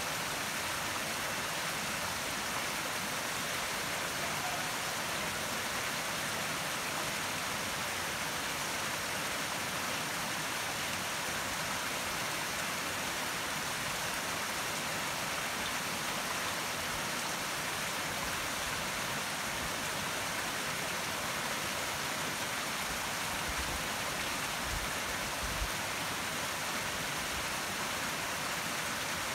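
Steady rushing of a nearby river or mountain stream, an even noise that does not change. A few faint low thumps come near the end.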